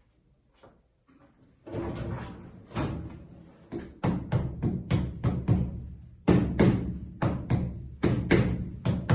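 Music, with nearly nothing for the first second and a half. Then comes a run of struck, ringing percussion notes, about three a second, over a low sustained tone.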